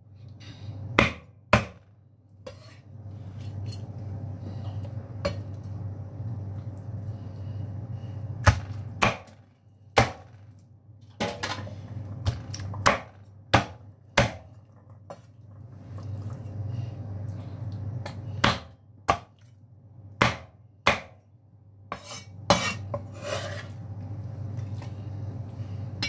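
Knife chopping cooked chicken on a cutting board: sharp single chops and quick pairs at irregular intervals, over a steady low hum.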